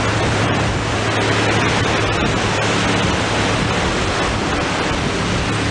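Steady rushing noise of ocean surf on the beach, with a faint low hum underneath.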